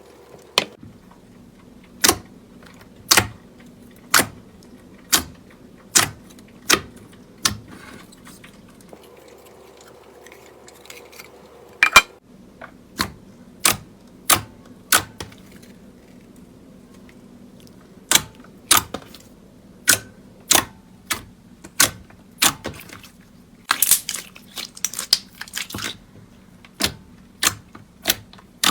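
Slime being pressed and folded by hand, trapped air pockets popping with sharp clicks about once a second, with a brief crackly stretch near the end.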